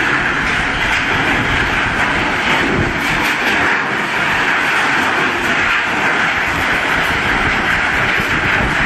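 Scrap steel crusher running, a loud, steady machine noise.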